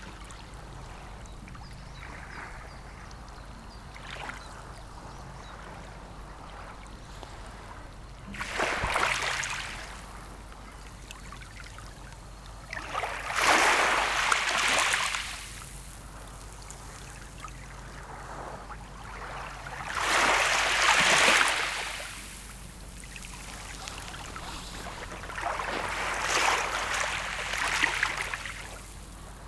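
Small sea waves breaking and washing up the shore, four swells about six seconds apart over a low continuous wash.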